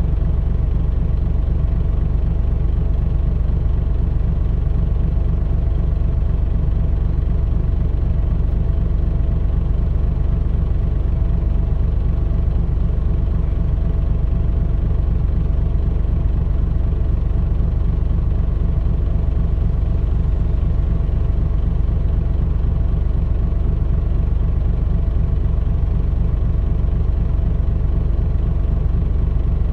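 Mitsubishi Fuso Aero Star (KL-MP35JM) city bus engine running steadily, heard from inside the bus, with an even, unchanging note and no rise or fall in revs.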